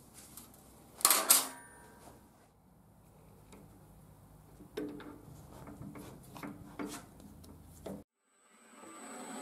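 Steel rods clanking on a steel welding table: two sharp metallic hits with a brief ring about a second in, then a run of lighter knocks and taps. Near the end a metal lathe starts and runs up to speed.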